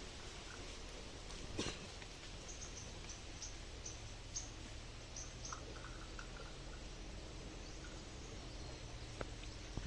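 Faint bird chirps: a series of short, high chirps over a steady low hum, with a click about a second and a half in and another near the end.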